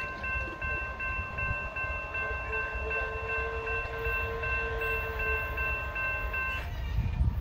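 Railroad grade-crossing warning bell ringing rapidly, about three strokes a second, over a low rumble; the bell cuts off suddenly near the end.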